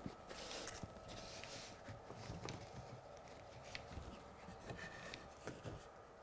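Faint handling noise at a workbench: soft rustling of a sleeve and hands moving, with a few light clicks and taps scattered through.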